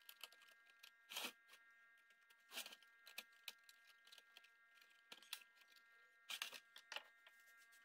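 Near silence broken by about half a dozen faint, short clicks and scrapes of hands handling the metal and plastic parts of a desktop PC case.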